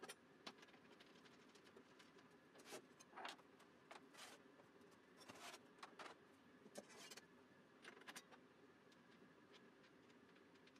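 Faint, scattered clicks and clinks of a table saw blade change: the arbor wrenches, arbor nut and steel blade being handled as the blade is taken off and a flat-tooth blade is set on the arbor.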